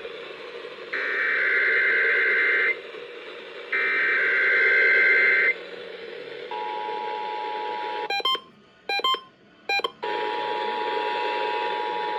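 Emergency Alert System SAME header heard over a radio: two bursts of warbling data tones, each just under two seconds, about a second apart, marking the start of a required monthly test. About six and a half seconds in, the steady two-tone EAS attention signal begins. It is broken near the eight-second mark by a couple of seconds of short electronic beeps, then carries on.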